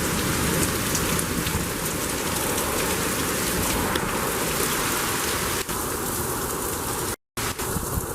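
Heavy rain and gusty wind beating on the microphone during a thunderstorm: a steady rush of noise. The sound cuts out completely for a split second about seven seconds in.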